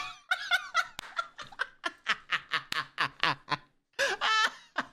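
A man laughing hard: a quick run of short laughs, about four or five a second, then a long, high, wavering squeal of laughter near the end.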